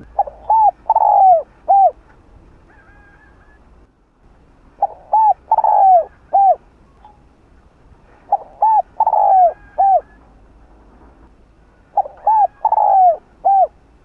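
Spotted dove cooing its song four times, about every three and a half seconds: each phrase is a couple of short coos, a longer falling coo, then one short coo at the end.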